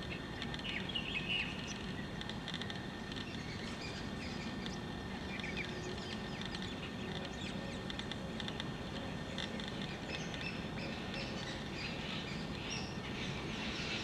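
Small birds chirping and calling in short scattered notes, busier near the end, over a steady outdoor background hum.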